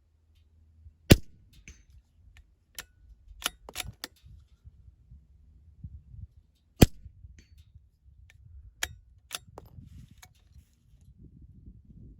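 Ruger Precision Rimfire .22LR bolt-action rifle firing two sharp shots about six seconds apart, with lighter clicks and knocks between them as the bolt is worked.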